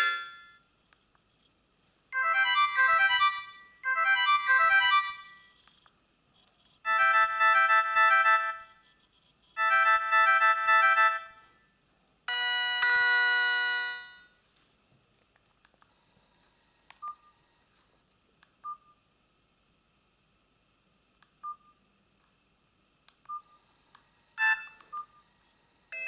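Panasonic KX-TF200 feature phone playing short previews of its built-in electronic ringtone melodies, five in a row, each cut off after a second or two as the next one is selected. After that come a few faint short beeps, one a little louder near the end.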